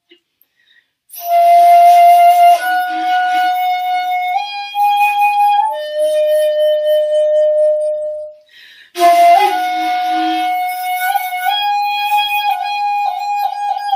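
Shakuhachi (Japanese end-blown bamboo flute) playing slow, long-held notes in two breath phrases, each starting with a breathy attack after a short silence. The first phrase steps up a little in pitch, then settles on a lower held note; the second holds a higher note that wavers and bends near the end.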